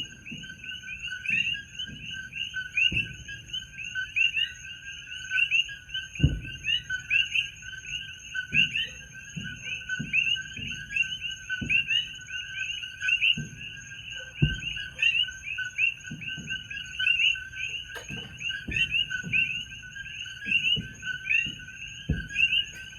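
A dense chorus of coqui frogs calling nonstop, with distant fireworks going off as low booms scattered through it; the loudest come about six, fourteen and twenty-two seconds in.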